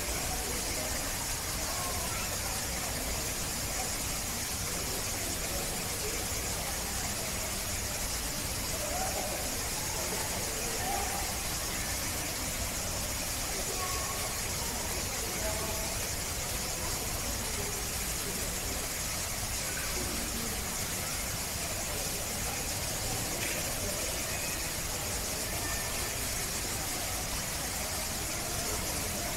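Steady rushing noise of a small waterfall running over rocks, with faint voices in the background.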